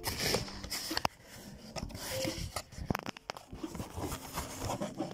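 Cardboard and plastic blister-pack cards rustling and clicking irregularly as they are handled in a shipping case of carded die-cast cars.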